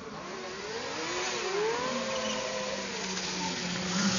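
Sport motorcycle engines revving, the pitch rising and falling with the throttle and then holding steadier, growing louder near the end as a bike rides close.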